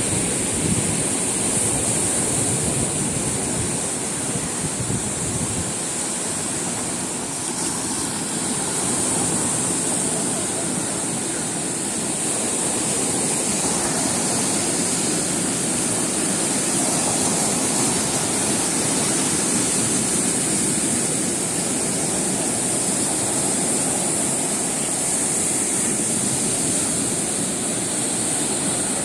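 Ocean surf breaking and foaming over a rocky shore: a steady rush of waves, with a constant high hiss above it.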